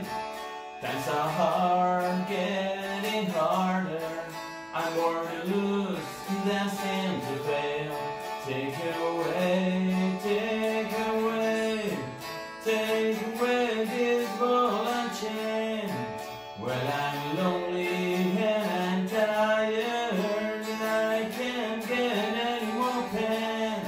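Hollow-body electric guitar playing a slow song, strummed chords mixed with melodic lines, with a man's voice coming in at times.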